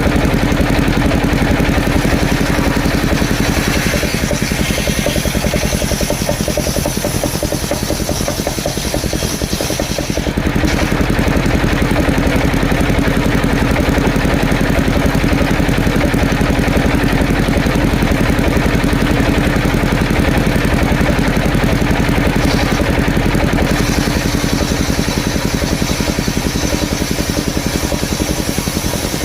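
The engine of a powered wood saw running steadily at a constant speed, with a fast, even pulsing.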